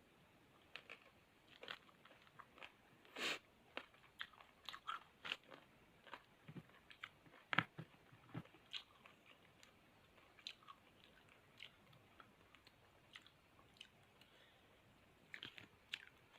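A person chewing and biting into crisp raw fruit close to the microphone: irregular crunches and wet chewing clicks, the loudest a little after three seconds and again at about seven and a half seconds.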